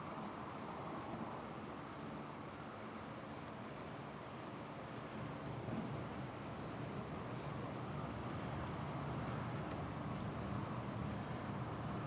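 An insect trilling on one steady high-pitched note that grows louder and cuts off suddenly near the end, over a faint low background rumble.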